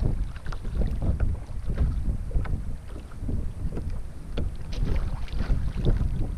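Wind buffeting the microphone in a gusting low rumble, with small waves slapping irregularly against a sit-on-top kayak's hull.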